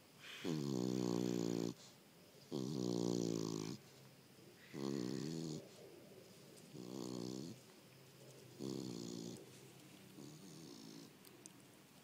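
Beagle snoring in her sleep: six pitched snores about two seconds apart, each shorter and quieter than the last.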